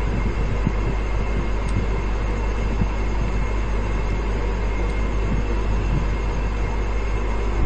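A steady low hum and even hiss of background noise, with a few faint clicks of the plastic drill housing and wires being handled.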